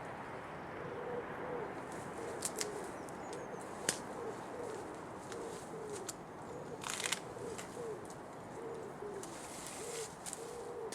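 A pigeon cooing over and over in soft, low notes, about two a second. A few sharp clicks come through, the loudest about four seconds in, with a short rustle near seven seconds.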